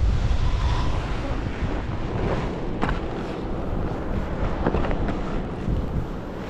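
Wind buffeting a skier's camera microphone, a heavy low rumble over the hiss of skis running through powder snow, with a few short sharp knocks about three seconds in and again near five seconds.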